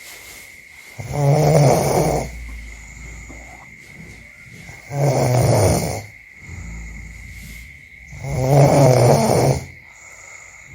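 A person snoring: three loud snores, each about a second long and roughly three and a half seconds apart, with quieter breaths between them.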